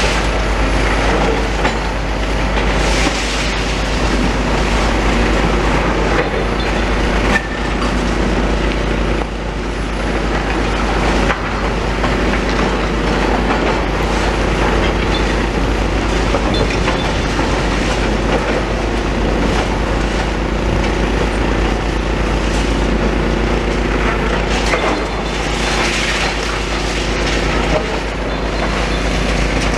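Demolition excavator at work on a building: its diesel engine runs steadily while masonry and debris knock and clatter now and then.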